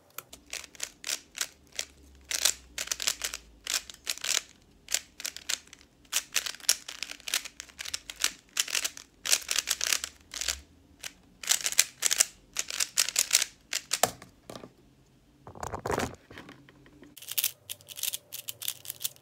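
Plastic 3x3 speed cube, a stickerless Qiyi MoFangGe Warrior, being turned very fast: rapid runs of clicking and clacking as the layers snap past each other, broken by short pauses.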